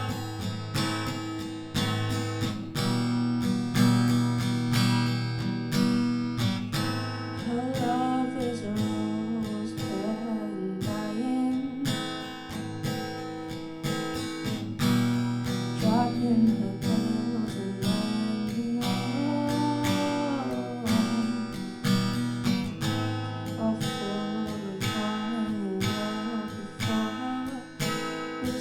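Acoustic guitar strummed and picked in an unaccompanied live performance, a slow ballad accompaniment, with a voice now and then carrying wavering wordless melody lines over it.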